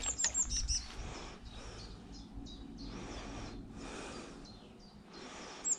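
Small birds chirping in quick runs of short high notes, once at the start and again near the end, over faint outdoor background noise.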